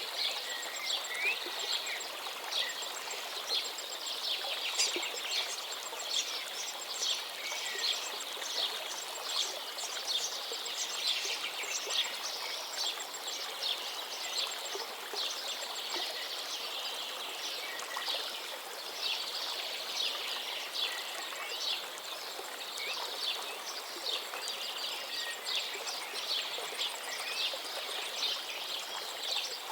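Running water, a steady rush like a stream, with many small birds chirping over it, short quick calls throughout and a thin high repeated note in the background.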